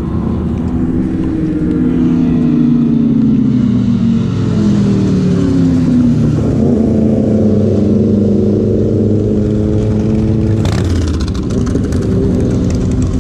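Motorcycle engines running and revving, the pitch falling and then climbing again as bikes come along the road. Near the end comes a sudden crash as a rider lowsides and slides into the parked motorcycles.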